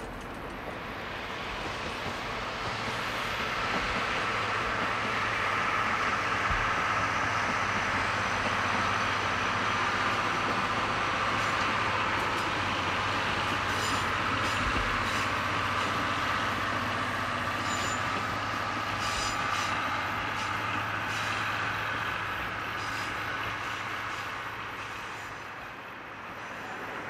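A DE15 diesel locomotive hauling trolley-train coaches, passing by: the engine's steady hum and the rumble of the wheels build over a few seconds, hold, then fade away as the train moves off. A series of light clicks comes midway through the pass.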